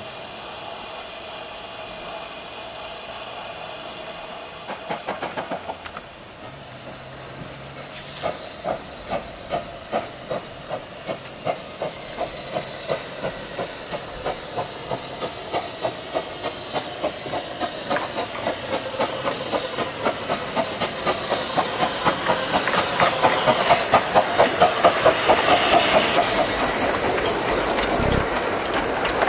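15-inch gauge Pacific steam locomotive Hurricane (RH&DR No. 8): a steady hiss of steam, then its exhaust chuffs as it pulls away, slow at first and steadily quickening and growing louder as it passes close by. Near the end the carriages roll past with a rhythmic rail clatter.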